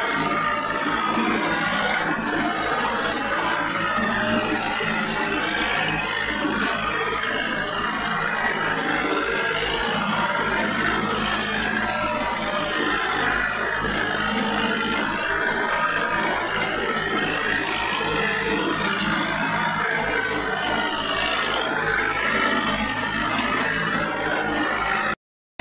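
Tractor diesel engine running steadily while driving across a dry field, heard from the driver's seat. The sound drops out abruptly for a moment near the end.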